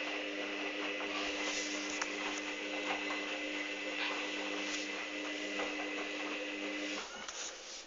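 Hoover Dynamic washing machine running a steady hum with a hiss of water, at the start of a cotton 60 °C cycle with pre-wash; the hum cuts off abruptly near the end.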